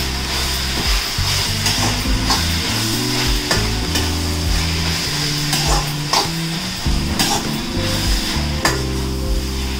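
Onions, tomatoes and masala sizzling in a steel kadai while a metal slotted spatula stirs, scraping and knocking against the pan about once a second.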